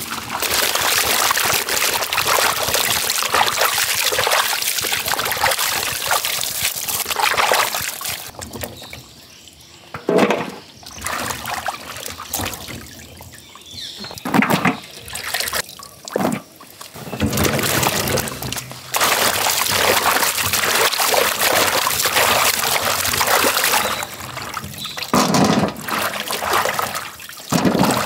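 Water splashing, sloshing and trickling as bottle gourds are washed by hand in a large metal tub of water and lifted out to drain, with a few separate sharp splashes in between.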